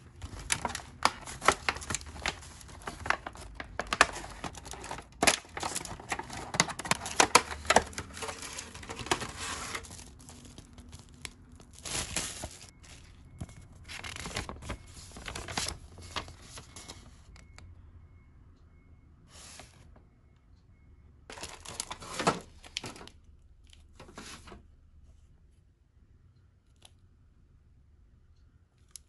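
Clear plastic food packaging crackling and crinkling as it is handled and opened. The crackle is dense for the first ten seconds, then comes in short separate bursts and fades out near the end.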